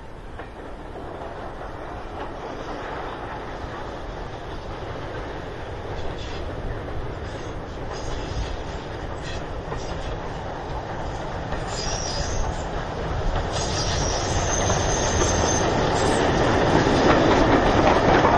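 Steam-hauled heritage train approaching, its running noise and rail clatter growing steadily louder, with a brief high-pitched wheel squeal about twelve seconds in.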